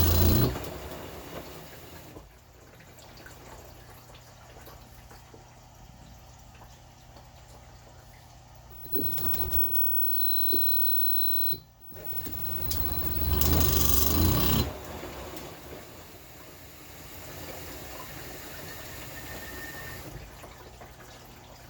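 LG WM2050CW front-load washer in its spin cycle: a steady hum broken by loud grinding, once at the start and again past halfway. The drum is not spinning properly because the rotor position (Hall) sensor is malfunctioning.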